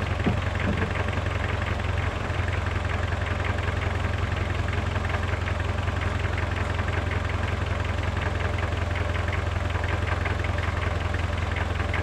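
Small diesel tractor engine idling steadily with an even, fast firing beat.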